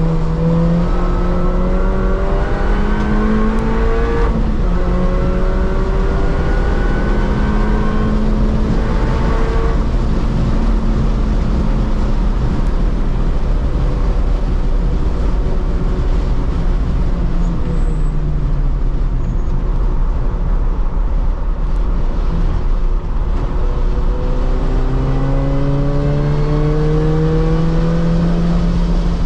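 R53 Mini Cooper S's supercharged 1.6-litre four-cylinder engine heard from inside the cabin, driven hard on track. The engine rises in pitch under acceleration, with an upshift about four seconds in and another long pull after it. It eases off and drops in pitch past the middle, then pulls hard again, climbing steadily over the last few seconds, over constant road and wind noise.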